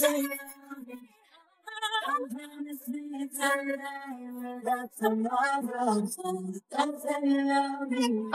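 A woman's solo singing voice, isolated with no instruments: held notes and wavering vocal runs, broken by short pauses.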